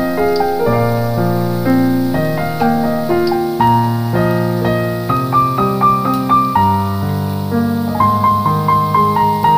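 Background piano music: a melody of single notes over lower held notes.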